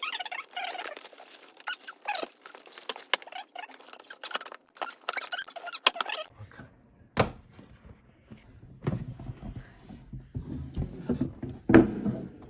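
Cardboard board game box being opened and its contents handled: crackly rustling and scraping, with a dull thunk about seven seconds in and a louder one near the end.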